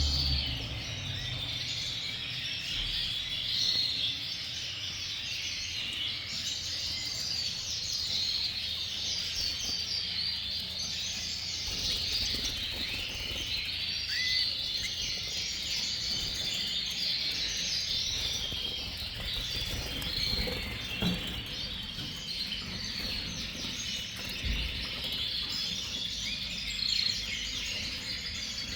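Many canaries chirping and singing at once, a dense, unbroken chorus of high warbling notes.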